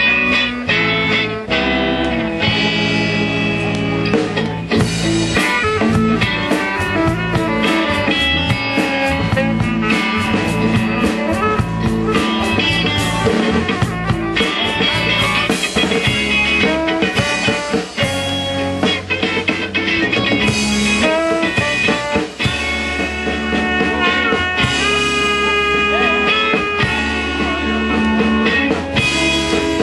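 Live band playing with electric guitar and drums, a steady beat under sustained guitar notes.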